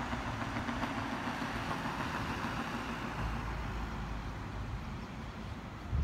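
JR West 115 series electric train rolling slowly toward the listener, a steady rumble of wheels and running gear with a low hum through the first few seconds. A brief thump comes near the end.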